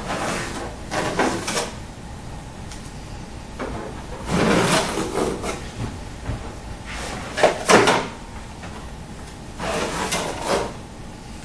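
Plastic panels and packing of an office multifunction copier being handled: about five short bursts of rustling and scraping, with two sharp knocks about two-thirds of the way through as the loudest.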